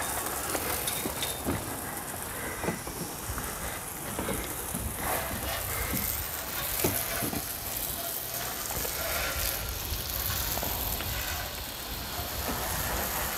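Water spraying steadily from a garden hose spray nozzle, spattering on a metal outdoor gas stove as it is washed down.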